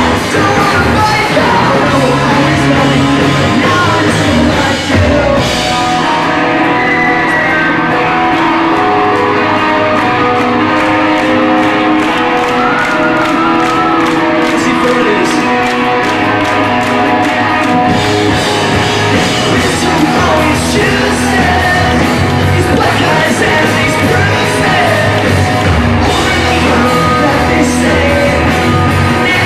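Live rock band playing loud, with electric guitar, bass and drums, and singing.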